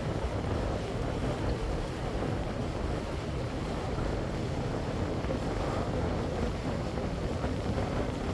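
Wind buffeting the microphone over the steady low rumble and water wash of a boat under way.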